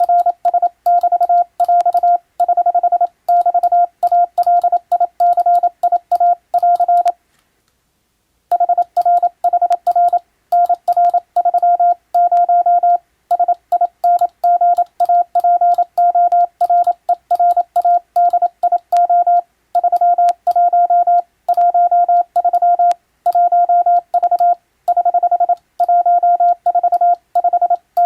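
Morse code (CW) tone, a single steady mid-pitched beep keyed rapidly on and off in dots and dashes. There is a pause of about a second a little after seven seconds in.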